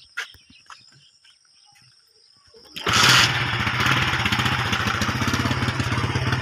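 A motorcycle engine starts about three seconds in, with a brief rev as it catches, then runs steadily at idle.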